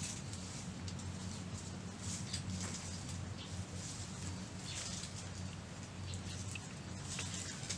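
Leaves and twigs rustling and snapping in scattered light crackles as plants are picked and gathered by hand in dense undergrowth.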